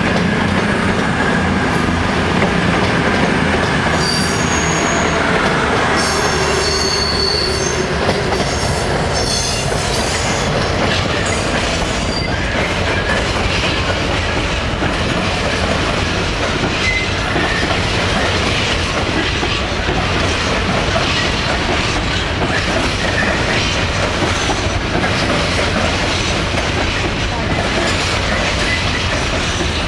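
A Class 66 diesel-hauled coal train of hopper wagons rolling past in a steady rumble and clatter of wheels over the rails. High-pitched wheel squeal rings out for several seconds from about 4 s to 12 s in.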